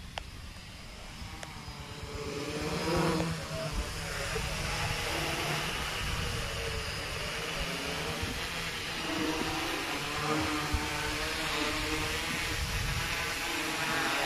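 Homemade F450 quadcopter hovering low, its four motors and propellers whirring at a steady pitch, louder from about two seconds in as it comes close.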